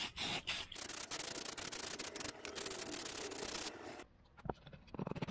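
Aerosol can spraying clear coat: a few short puffs, then a steady hiss of about three seconds that cuts off suddenly about four seconds in.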